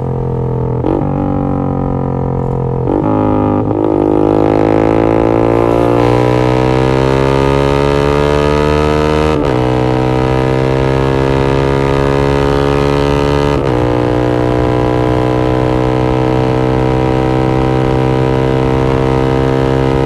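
Yamaha MX King's single-cylinder four-stroke engine through an aftermarket X1 Speed Racing SH-01 exhaust, pulling hard through the gears under way. The exhaust note climbs in pitch and drops briefly at each upshift: quick shifts in the first four seconds, then longer pulls broken near the middle and about two-thirds of the way in. It holds at high revs after that.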